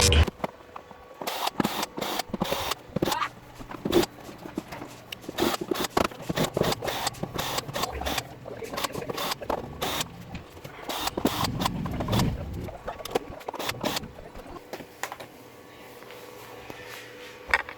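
Irregular clicks, knocks and rattles of hands working with tools and parts in a TV repair, busiest over the first dozen seconds and fewer and quieter near the end.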